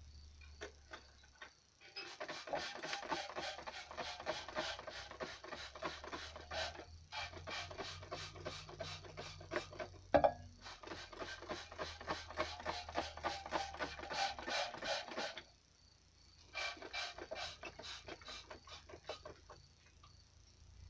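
Plastic trigger spray bottle pumped quickly again and again, squirting water onto burnt filter ash in a glass jar. It goes in long runs of rapid clicks with short pauses, and there is one sharp knock about halfway through.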